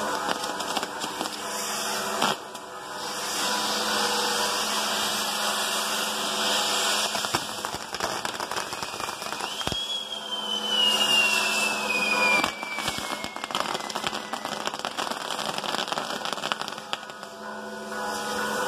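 Fireworks on a firework tower burning: continuous crackling and hissing of sparks with many sharp pops. About ten seconds in, a whistling firework sounds, falling slowly in pitch over a few seconds.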